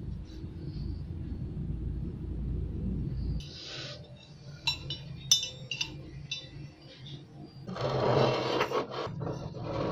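Steel parts of a hand pruner clinking against each other as they are handled: a string of sharp metallic clinks with a short ring, then a scraping rustle near the end. A low rumble runs in the first three seconds and then stops.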